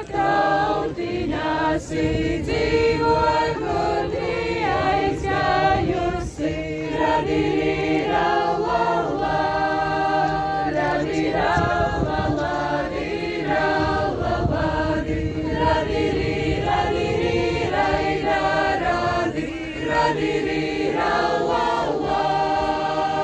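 A Latvian folk group of men and women singing a folk song together in several voices, with low held notes underneath at times.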